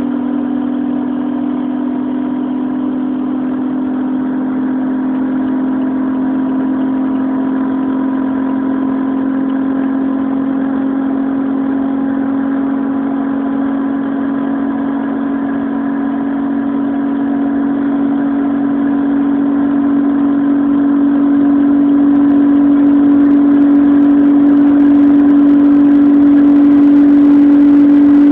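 Renault Espace's 3.5-litre V6 engine pulling hard at high speed in top gear, heard from inside the cabin over wind and road noise. Its steady drone climbs slowly in pitch and grows louder over the last third as the car closes on its top speed.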